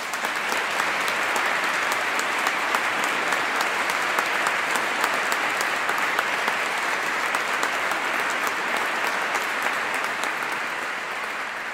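A large crowd applauding steadily, with many hands clapping at once, dying away near the end.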